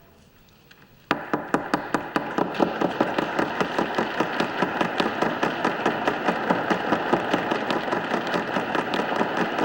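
A rapid, even train of sharp knocks, about eight to ten a second, that starts suddenly about a second in after a quiet moment and keeps going at a steady level.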